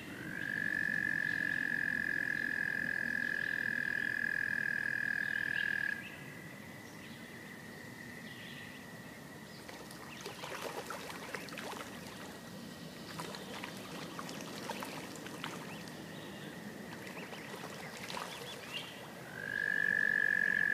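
American toads trilling at a pond: a loud, steady high trill held for about six seconds, then another starting near the end, over a fainter continuous trill from another toad farther off.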